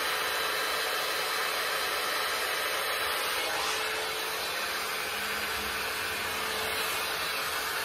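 Babyliss hot air styling brush running steadily, its fan blowing a continuous rush of air as it is drawn through the hair. A faint steady whine joins about halfway through.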